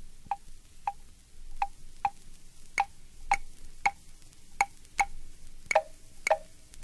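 Claves playing alone in an uneven repeating rhythm, about two strokes a second, as the intro of a son cubano recording, over faint hiss. A soft held note comes in beneath the strokes near the end.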